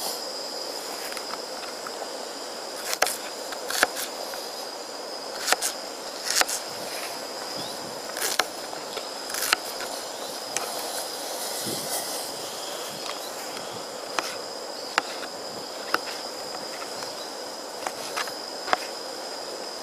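Knife cutting onion and mushrooms on a small chopping board, sharp irregular taps about a dozen times, over the steady hiss of a gas camping stove under a steaming pot of water.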